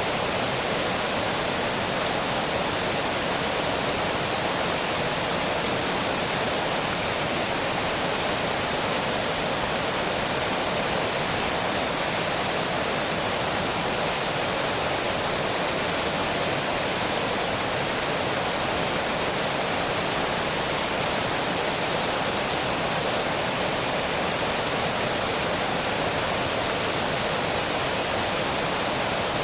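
Water pouring over a small dam, a steady, even rush of falling water with no change throughout.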